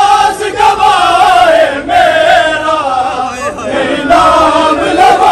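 A crowd of men chanting together in a drawn-out, sung chant.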